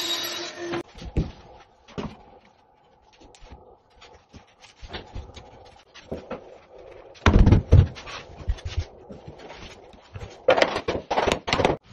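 A table saw ripping a wooden parquet plank, cutting off less than a second in. After that come scattered knocks and thumps of wooden floorboards being set down and pushed together on the floor, with a loud low thump about seven seconds in and a run of sharp knocks near the end.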